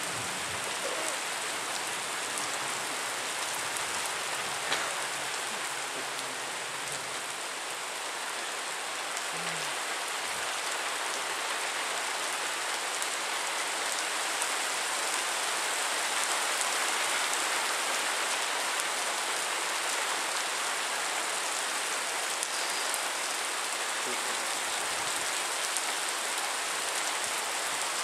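Heavy thunderstorm rain pouring down steadily as an even hiss, growing a little louder about halfway through.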